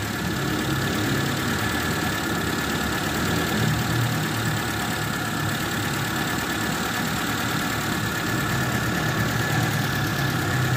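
Carburetted Mitsubishi Lancer four-cylinder engine idling steadily and quietly, freshly tuned up and running shortly after a cold start.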